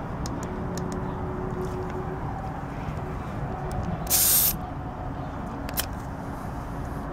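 A short, loud hiss of air escaping from a car tyre's valve stem about four seconds in, as a pressure gauge is pressed on to check the freshly inflated tyre, over a steady low rumble. A single small click follows near six seconds.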